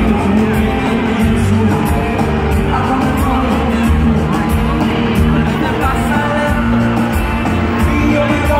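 Live band playing a Latin reggaeton pop song with heavy bass, a male lead singer singing over it through the concert sound system.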